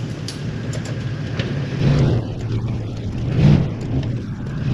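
Truck driving on a dirt fire road: a steady low engine and road hum that swells twice, with a few sharp knocks and rattles.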